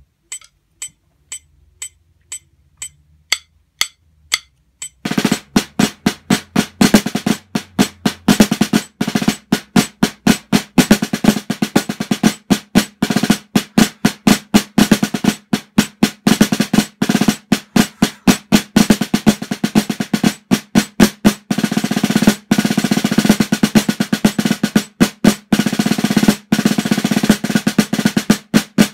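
Sonor D454 snare drum, half its head covered by a towel, played with wooden concert sticks: a rudimental solo at 120 beats a minute, full of rolls and fast strokes. It starts about five seconds in, after a count-in of evenly spaced clicks, two a second.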